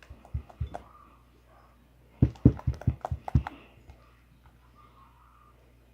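Short knocks and taps of things being handled, in two quick clusters: a few light ones right at the start, then a louder run of about eight about two seconds in.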